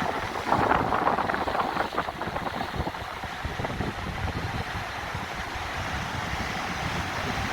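Sea waves washing, with wind buffeting the microphone, a little louder in the first two seconds.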